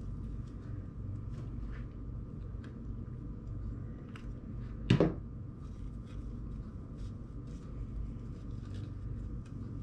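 Faint handling sounds of rope being pressed onto a cloche and glued, small scattered clicks over a steady low hum, with one sharp knock about halfway through.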